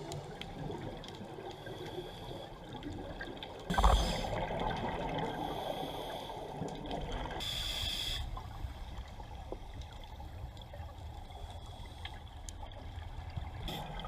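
Underwater noise heard through a camera housing on a scuba dive: a steady muffled water hiss, with louder gurgling bursts of a diver's exhaled bubbles about four seconds in and again about seven and a half seconds in.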